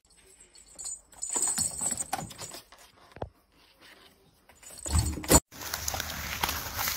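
Cat scrabbling and pawing at a cardboard box, with scratchy rustling, a sharp knock about three seconds in and a louder bump of cardboard around five seconds in. Then steady background hiss.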